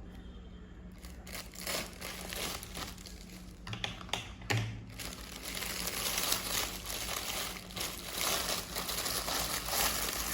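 Packaging crinkling and rustling as it is handled and opened, with scattered clicks at first, then continuous crackling from about halfway through.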